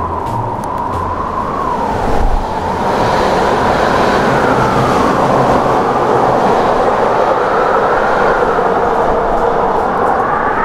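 Strong gusty wind howling: a loud rush of wind with a whistle-like tone that slowly rises and falls in pitch.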